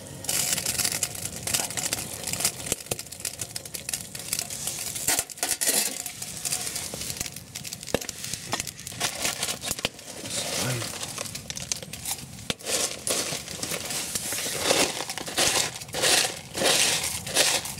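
Foil pouch of freeze-dried pasta bolognese crinkling and rustling as it is handled and opened, with dry pasta tipped out of it into a camping pot.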